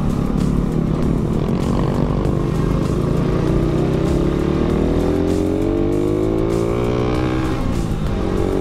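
Yamaha Sniper 150i's single-cylinder four-stroke engine pulling up a climb in third gear, its revs rising steadily for several seconds. Near the end the revs drop sharply at a gear change, then hold steady.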